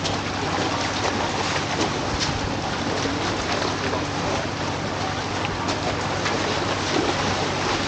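Steady rushing outdoor noise with faint voices underneath.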